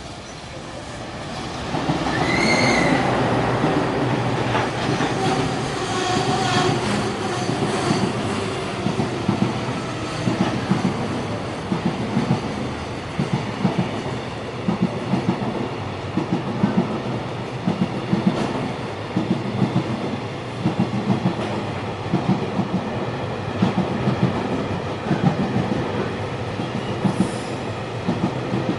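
Freight train hauled by an EF210 electric locomotive passing close by, its brakes squealing as the locomotive goes past, then a long run of wagons with wheels clacking over the rail joints in a steady rhythm.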